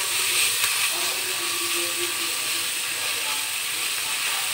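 Onions, spice pastes, turmeric and bay leaves sizzling steadily in hot oil in an aluminium pan while a silicone spatula stirs them.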